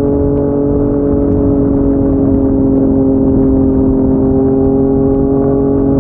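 Yamaha MT-09's three-cylinder engine through a Yoshimura R55 slip-on exhaust, held at a steady throttle at highway cruising speed, its note almost constant in pitch. Wind and road noise run underneath.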